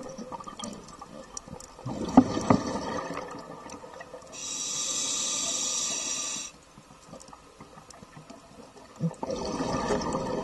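Underwater scuba breathing: exhaled bubbles from a diver's regulator burble past in two bursts, one about four seconds in lasting two seconds and another near the end, with clicks and knocks between breaths.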